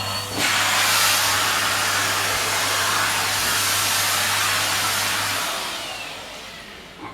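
Vacuum cleaner running at full power, then switched off about five and a half seconds in, its motor winding down with a falling whine as the noise fades away.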